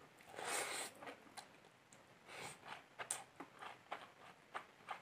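Close-up chewing of a mouthful of rice mixed with curry, with small wet mouth clicks. Two breaths through the nose come about half a second in and again at about two and a half seconds, the first the loudest sound.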